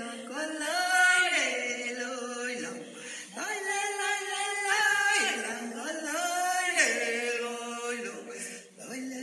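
A man's unaccompanied voice joiking, a Sámi chant of long held notes that slide up and down between pitches.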